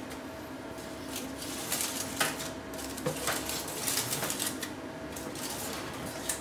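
Metal baking tray clinking and scraping against the oven's wire rack as it is slid out and handled, with crinkling aluminium foil, in a run of short irregular clatters over a steady hum.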